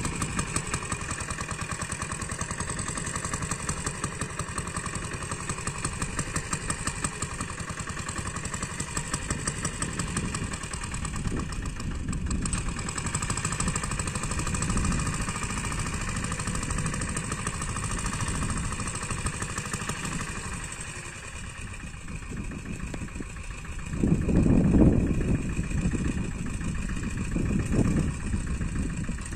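Engine of a small sanedo farm machine running steadily while it pulls a ridger to cut an irrigation channel through the soil, with a louder low rumble about 24 seconds in.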